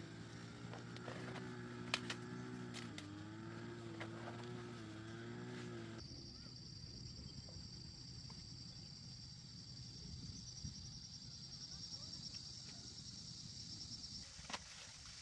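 A small engine running steadily for the first six seconds, its pitch stepping slightly once, with a few light clicks. It gives way abruptly to a steady high-pitched insect buzz that pulses toward the end.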